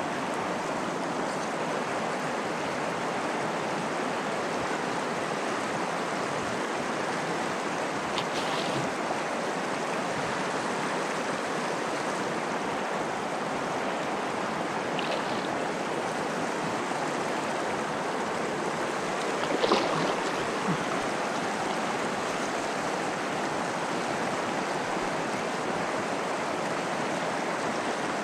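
Steady rush of a flowing river, with three short splashes, the loudest about twenty seconds in.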